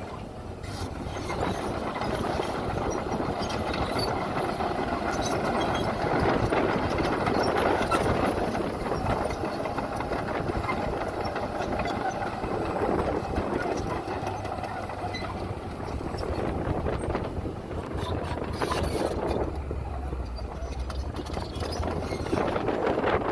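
Diesel engines of heavy earthmoving machinery running under load, a steady low hum under a thick mechanical rumble that swells and eases.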